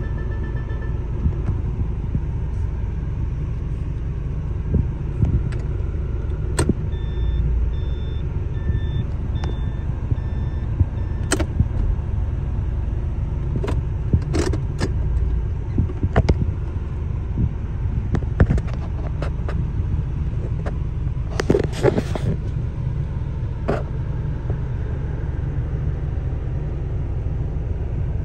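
Toyota Hilux's 2.4 L four-cylinder 2L-TE turbo diesel running with a steady low rumble, heard inside the cab. Scattered clicks and knocks sound over it, and a string of about six short electronic beeps comes a few seconds in.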